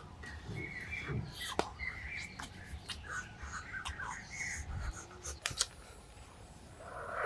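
Small birds chirping, with scattered sharp clicks and taps.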